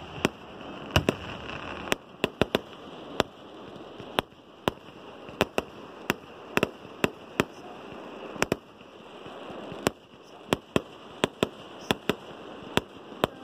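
Fireworks display: an irregular run of sharp bangs from bursting aerial fireworks, one to three a second and sometimes in quick clusters, over a continuous noisy background.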